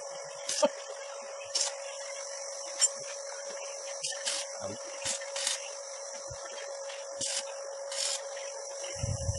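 Steady high chirring of insects, over a steady hum, with about eight short taps or clicks scattered irregularly through it.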